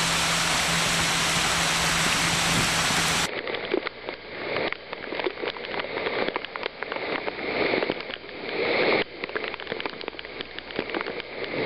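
A steady even hiss with a faint low hum, cut off about three seconds in by rain and storm water running over a footpath: an uneven rush with many sharp drops and patters close by.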